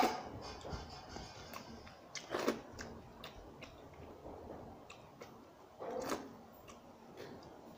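A person eating watery rice (pakhala) with his fingers: wet mouth sounds as handfuls reach the mouth at the start, about two and a half seconds in and about six seconds in, with faint chewing and small clicks in between.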